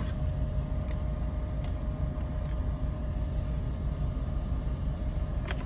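Steady low rumble of an idling car heard from inside the cabin, with a faint steady hum and a few light clicks.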